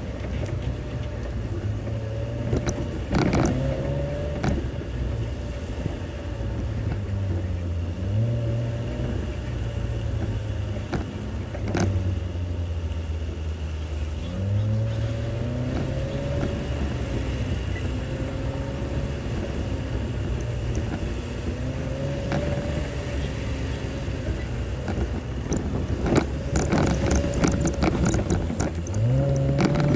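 A Jeep's engine running at low speed on a rough off-road trail, its pitch rising and falling with the throttle. Occasional sharp knocks, with a cluster of knocks and rattles near the end.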